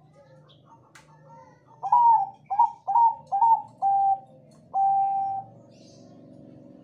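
Zebra dove (Bangkok-bred perkutut) cooing: a run of five short notes, each rising then falling, ending in one longer held note about five seconds in. A faint steady hum follows the song.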